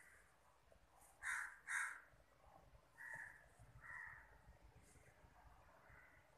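A crow cawing: two loud caws about a second in, then three fainter ones spaced out after.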